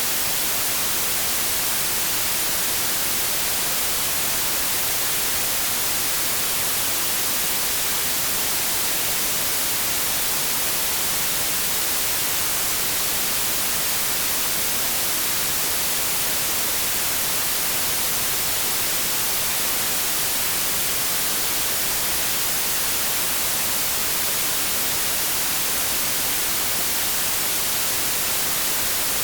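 Continuous synthetic white noise: a steady, unchanging hiss, brightest in the high frequencies.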